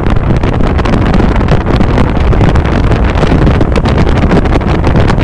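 Loud, steady rush of wind buffeting the microphone on the bow of a KNRM rescue boat running at high speed, over the drone of its engines and water rushing past the hull.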